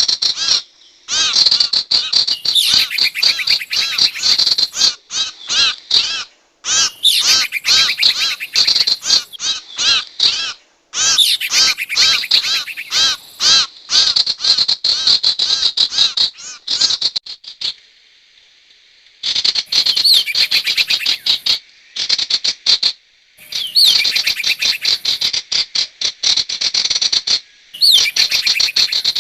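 Recorded bird-lure calls of the sirtu bird: rapid, dense runs of sharp chirps repeated in stretches, with a short pause about eighteen seconds in.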